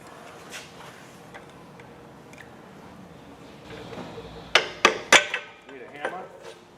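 Three sharp metallic clinks close together, then a few lighter taps: metal tools and pump parts being handled and set down during pump disassembly.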